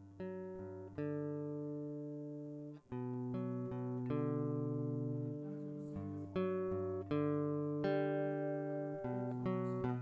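Solo acoustic guitar playing a slow piece, plucked notes and chords struck about once a second and left ringing into one another.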